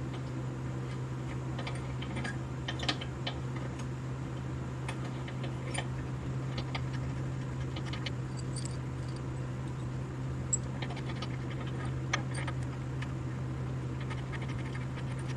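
Scattered light metallic clicks and taps of bolts and hand tools being handled, over a steady low hum.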